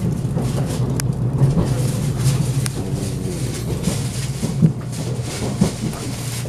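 Cabin noise of an HB-E300 series hybrid train running along the line: a steady low drone, with a sharp click about a second in.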